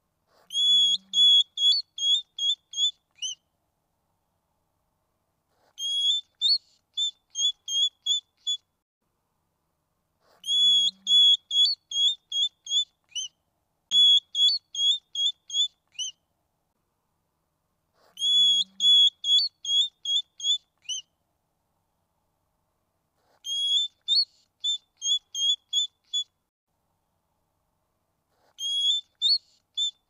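High-pitched whistled chirping from a small animal, in bouts of about seven short notes that end on a falling note. The bout repeats every four to five seconds, the same each time, with silence between.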